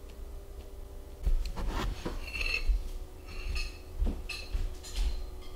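Scraping, squeaky rubbing and low knocks of a glass bowl with a metal spoon and a wooden chair being moved as someone gets up from a table, starting about a second in.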